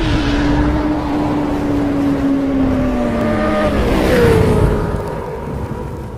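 Sound-effect motorcycle engine running: its note holds, then sags in pitch over about four seconds; a rush of noise comes near four seconds, followed by a higher steady note that fades away near the end.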